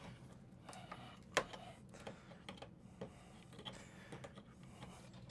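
Faint, scattered clicks and light taps from electrical cable and a pair of pliers being handled against wooden wall studs, with one sharper click about a second and a half in.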